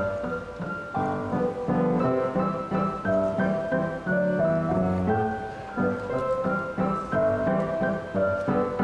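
Piano duet on a grand piano: a child and her teacher playing a simple tune together, with a steady run of struck notes and chords.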